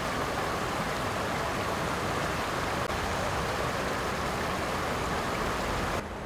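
Floodwater rushing and spilling over a ledge into a flooded underpass, a steady, even rushing. It cuts off abruptly near the end.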